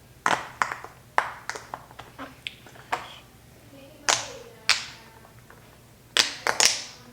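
Mini bubble popper (pop-it) fidget toy being pressed, its silicone bubbles giving a string of small, sharp pops at irregular intervals, several in quick succession near the end.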